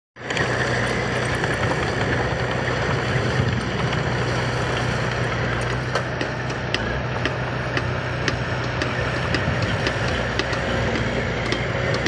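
Diesel dump truck engines running steadily with a low hum, as a loaded truck manoeuvres and begins to tip its bed. Scattered sharp ticks come in from about halfway through.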